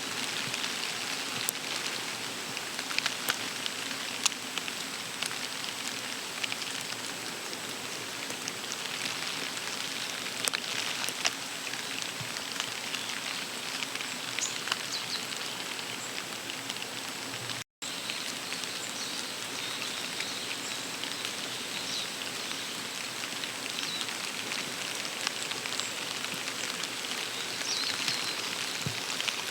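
Steady rain, with many sharp ticks of drops striking surfaces close by and a faint steady high tone underneath. The sound drops out for an instant about two-thirds of the way through.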